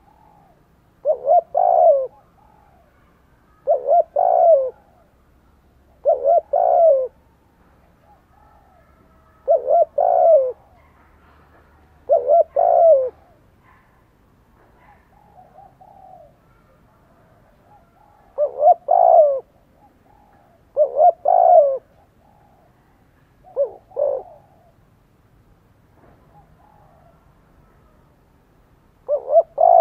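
Spotted dove cooing in short two- or three-note phrases, repeated about nine times every two to three seconds with a longer pause midway. This is the fighting-spirited 'thúc gù' urging coo that a decoy dove uses to provoke wild rivals.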